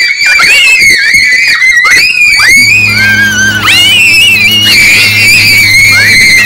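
Several children shrieking and screaming at a high pitch, on and off, as they play wildly. A steady low hum joins about two and a half seconds in.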